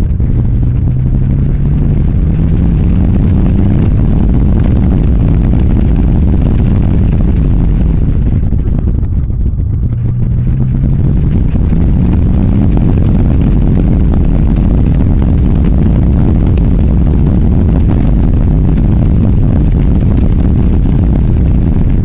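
Heavy wind noise buffeting a microphone held outside a moving car. Underneath it, the Nissan Skyline R33's straight-six engine note rises twice as the car accelerates, once about a second in and again about ten seconds in.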